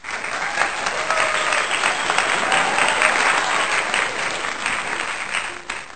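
Crowd applause, many hands clapping in a dense, steady patter that fades near the end.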